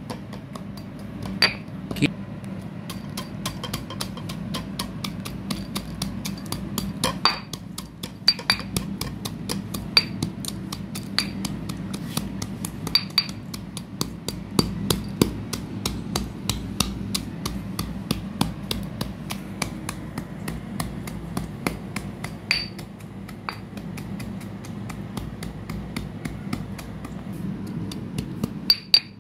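Slate pencil pieces being crushed and ground with a pestle in a stone mortar: a steady, rapid crunching and grinding, with sharper clinks now and then as the pestle strikes.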